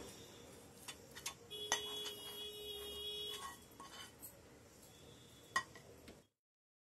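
Steel spoon scraping and tapping against a pan and a steel plate: a few light clinks, one of which sets the steel plate ringing for about two seconds. The sound cuts to silence shortly before the end.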